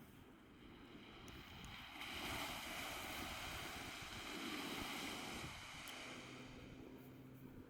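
Ocean surf: a wave breaks and washes in, its rushing hiss swelling about two seconds in and easing off after a few seconds, with wind buffeting the microphone.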